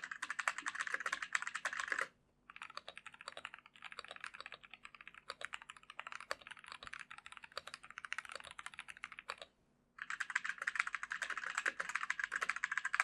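Fast typing on mechanical keyboards with brown switches, a rapid run of key clacks. It comes in three stretches with brief pauses between: a louder, brighter clatter, then quieter typing from about two and a half seconds in, then the louder clatter again near the end.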